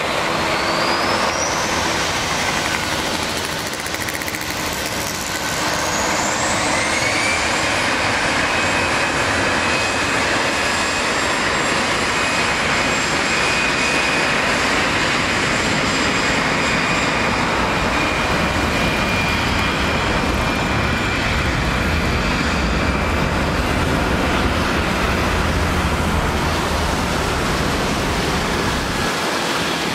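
Airbus A320 jet engines spooling up for take-off: a rising whine about six seconds in settles into a steady high whine over a loud rushing roar. A low rumble builds through the second half as the jet races down the wet runway.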